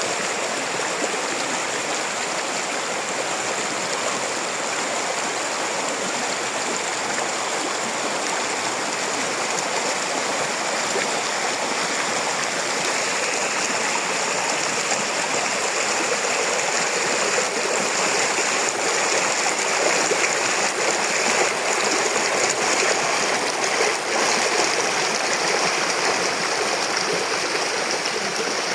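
Steady rushing of flowing water, like a stream, without a break.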